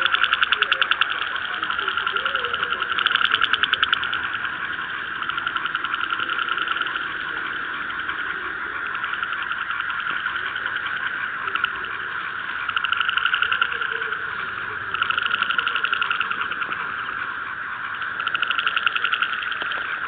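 A chorus of frogs calling steadily: a fast pulsing trill that swells louder every few seconds.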